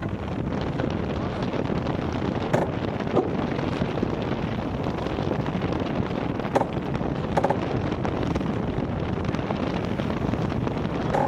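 Wind buffeting the microphone and water rushing along the hull of a Maxi 72 racing yacht sailing fast upwind, with a few short clicks from the deck now and then.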